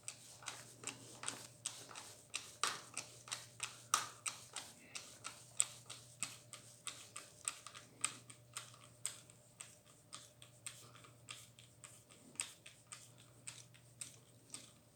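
Light, sharp clicking, about three clicks a second, as a screwdriver works screws out of an air rifle.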